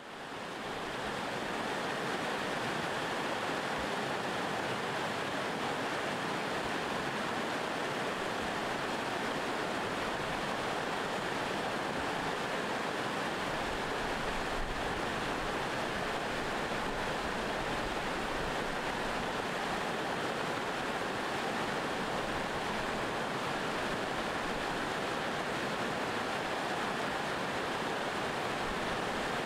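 River rapids rushing over rocks: a steady noise of fast-flowing water that fades in over the first couple of seconds.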